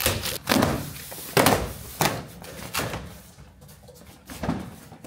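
Cardboard motorcycle crate being opened: packing tape slit with a box cutter and a cardboard side panel pulled away, heard as a run of short rustling, knocking cardboard sounds, loudest about a second and a half in and fading near the end.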